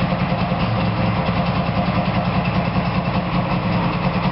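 Freshly restored DKW-Vemag three-cylinder two-stroke engine of a Puma GT idling steadily, with a fast, even flutter and no revving.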